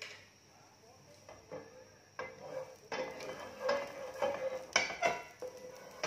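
Wooden spatula scraping and knocking against a nonstick frying pan, starting about two seconds in as irregular strokes that grow busier toward the end.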